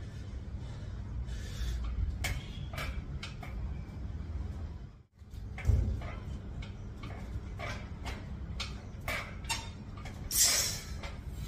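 Freestanding pull-up tower's steel frame clicking and creaking irregularly under repeated bodyweight pull-ups, over a steady low rumble. There is a brief drop to silence about halfway, a thump just after it, and a louder rush of noise near the end.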